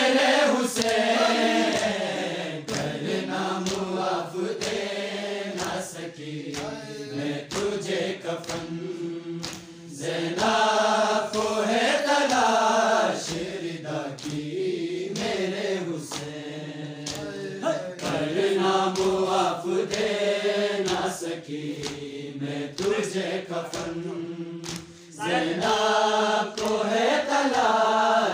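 A group of male voices chanting a noha, a Shia lament, in unison without instruments, phrase after phrase. Regular sharp hand slaps keep the beat.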